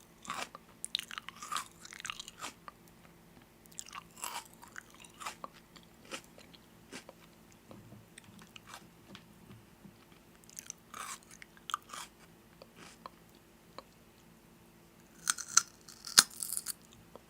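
Close-up crunchy chewing and biting of food, coming in several bursts of crackly crunches separated by quieter pauses.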